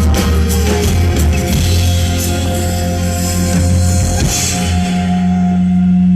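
Band music with a drum kit. About five seconds in it settles into one held low note as the high end fades away.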